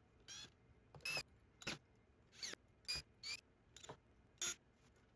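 Screws being driven in around the panel of an ADAM A5X studio monitor: a run of about nine short, high-pitched squeaky strokes, faint and spaced unevenly.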